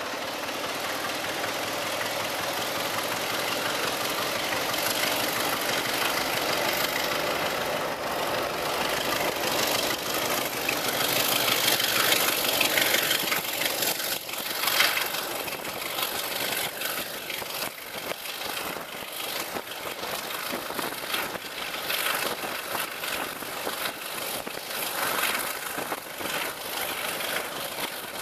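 British Rail Class 33 diesel locomotive 33063 hauling a train, heard from an open carriage window down the train: its Sulzer eight-cylinder diesel engine working along with the rush of air and the wheels on the rails. The noise swells to its loudest around the middle, then turns uneven.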